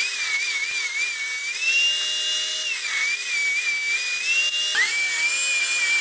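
Benchtop table saw running and ripping the edge of a walnut board flat for a glue-up: a loud, steady high motor whine over a hiss, its pitch sagging and recovering as the blade takes the cut. Near the five-second mark the whine breaks briefly and picks up again.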